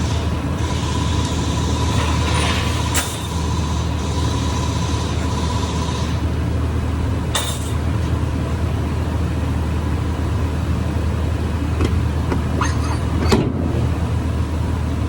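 A running engine's steady low drone, with a hiss over the first six seconds and a few sharp clicks and knocks.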